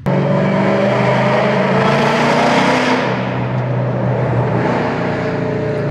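Car engine pulling hard under heavy throttle: a loud, steady drone that comes in suddenly and holds for several seconds.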